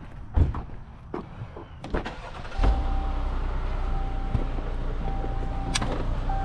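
A couple of knocks, then about two and a half seconds in a motor-vehicle engine starts and keeps running steadily at idle.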